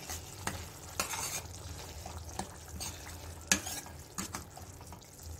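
Steel ladle stirring a thick onion-tomato masala in a stainless steel kadai, knocking and scraping against the pan half a dozen times, over a soft simmering sizzle; the onion and tomato are cooked soft.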